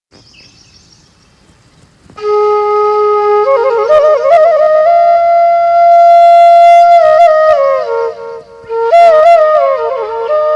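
Flute playing a melody: long held notes that step up and down, decorated with quick trills and slides. It comes in loudly about two seconds in, after a faint high sound, and pauses briefly near the end.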